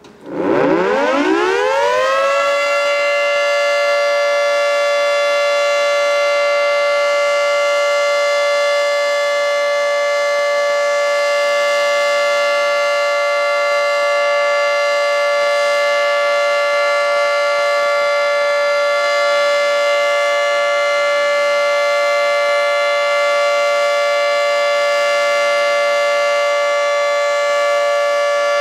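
Federal Signal 3T22 three-tone outdoor warning siren sounding a test. It winds up, its chord of tones rising in pitch over the first two seconds or so, then holds a steady, loud chord.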